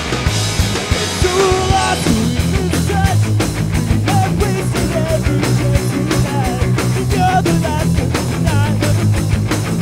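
Rock band playing a song loud: electric guitar, bass and a drum kit keeping a fast, even beat, with a bending melody line over the top.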